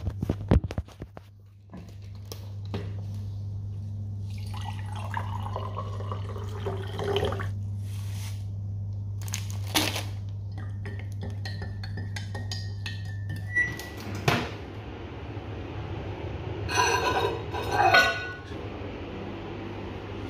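Spoon clinking against a ceramic mug while black coffee is stirred, over the steady hum of a microwave oven running. The hum stops about two-thirds of the way through with a short beep and a click, and more spoon clinks follow near the end.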